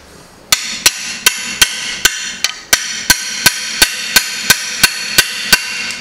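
Hammer blows on a steel open-end wrench, about fifteen sharp strikes at roughly three a second, each with a metallic ring. They are trying to break loose a rust-seized part in a Chevrolet Corsa GSI 1.6 16v engine block, which does not give.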